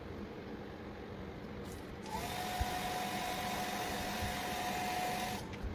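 Small battery-powered handheld vacuum cleaner, run on batteries wired in series, switching on about two seconds in and running with an airy rush and a steady whine, then stopping shortly before the end.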